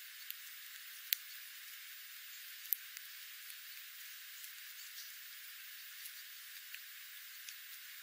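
Small ground-feeding birds, spotted towhees and dark-eyed juncos, pecking and scratching at scattered seed: sparse sharp ticks over a steady hiss, the loudest about a second in and near three seconds. No song is heard.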